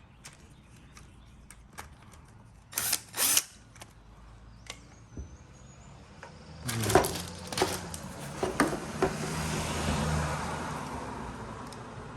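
Hand tools and motorcycle parts clicking and knocking during hand repair work, with two short loud scrapes about three seconds in and a cluster of sharp knocks later on. A rushing noise swells in the last few seconds and fades toward the end.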